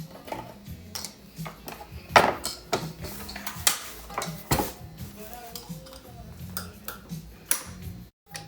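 Metal clicks and clinks as the blade of a track saw is changed, with a few sharper knocks about two, three and a half and four and a half seconds in.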